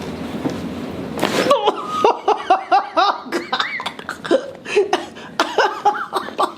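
A short burst of noise about a second in as the Y-strap pull is made, then a woman's laughing, rapidly repeated vocal exclamations in reaction to the spinal decompression.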